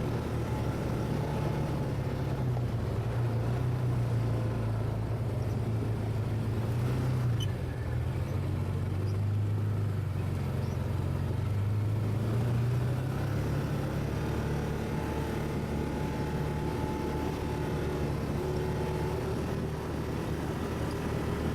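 ATV engine running while under way, a steady low hum whose pitch drifts up and down with the throttle.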